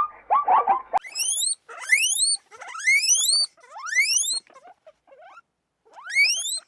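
Animal calls: a quick run of short calls, then from about a second in a series of high, piercing whistles, each rising steeply in pitch and under a second long, about five of them with a pause before the last.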